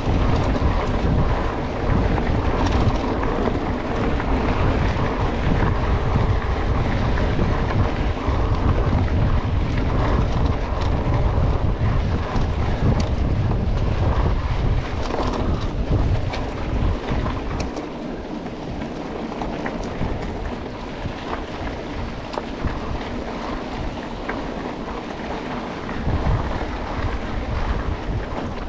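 Wind buffeting the microphone of a camera riding along on a mountain bike, a loud low rumble with scattered clicks and knocks. The rumble eases about two-thirds of the way through and picks up again near the end.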